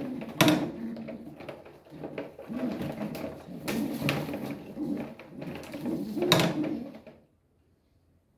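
Racing pigeons cooing, with a few sharp knocks and clatter; the sound cuts off abruptly about a second before the end.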